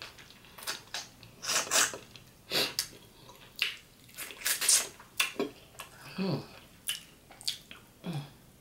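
Close-miked wet chewing and lip-smacking as a piece of curry turkey wing is eaten by hand, coming in irregular bursts, with a couple of short hums later on.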